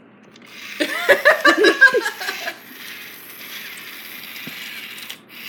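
A loud burst of giggling, short pitched sounds bending up and down, about a second in, then a steady fainter noise with no clear tone for the rest.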